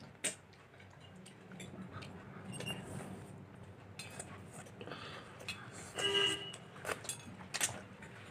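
Mukbang eating sounds: chewing and the clicks and taps of utensils and dishes, irregular and close to the microphone. A short high-pitched squeal about six seconds in is the loudest sound.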